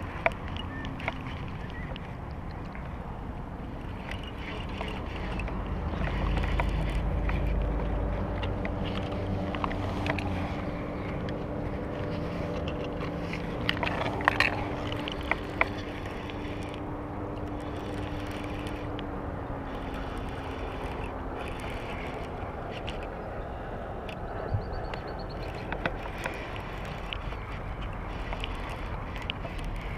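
Outdoor wind and water noise on the microphone, with a low rumble of wind buffeting about a quarter of the way in. A steady low hum runs through the middle, and a few sharp knocks of handling come about halfway through.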